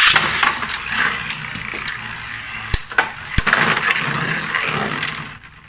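Two Beyblade tops ripped at once from string launchers, then whirring and rattling as they spin in a plastic stadium, with a few sharp clicks of hits. The spinning noise drops away about five seconds in.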